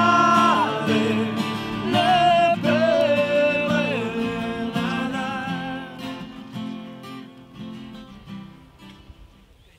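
Acoustic guitar strumming with a singing voice holding long notes, fading out gradually over the second half.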